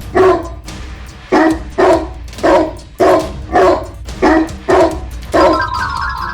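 A dog barking in a steady series of about nine short barks, roughly two a second, over background music.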